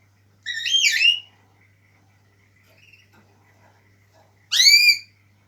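African grey parrot whistling twice: a wavering up-and-down whistle about half a second in, then a rising, arching whistle near the end.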